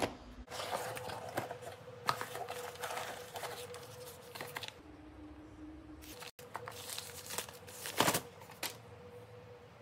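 Cardboard box and its kraft-paper sleeve and shredded paper packing rustling and crinkling as they are handled and opened, with small clicks and a sharper knock of cardboard about eight seconds in, over a faint steady hum.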